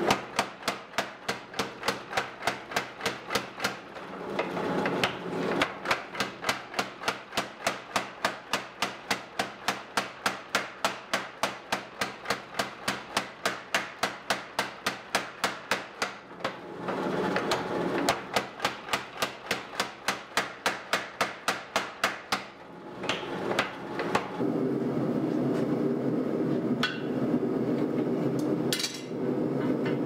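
Power hammer pounding a red-hot steel axe head between its dies in fast, even runs of about four blows a second, pausing briefly a few times. Near the end the blows stop and a steady mechanical hum runs with a few single knocks.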